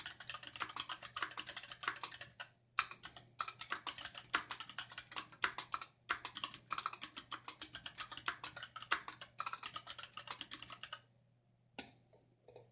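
Fast, continuous typing on a Varmilo VA68M mechanical keyboard with Gateron Red linear switches and dye-sub PBT keycaps, in a dense run of keystrokes with a couple of short pauses. The typing stops about 11 seconds in, followed by a few scattered keystrokes near the end.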